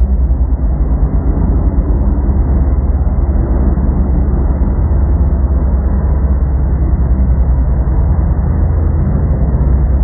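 A loud, steady low rumble that runs on without pauses.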